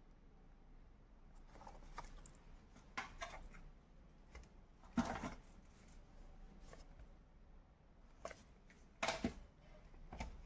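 Sealed plastic audio cassette cases being handled: scattered light clicks, taps and crinkles of the shrink-wrapped cases, loudest about five seconds in and again about nine seconds in.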